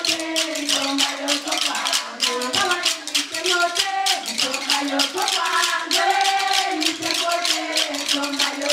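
Women's voices singing a song together over fast, steady percussion.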